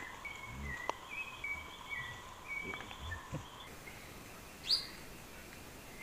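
Forest birds calling: a run of short whistled notes in the first half, then a single sharp upward-sweeping chirp near the end. Soft low thuds sound a few times under the whistles.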